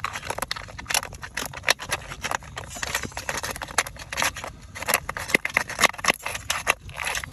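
Irregular clicks and scrapes, several a second, of a thin rod prodding and scraping against rock in a crevice where a crab is wedged.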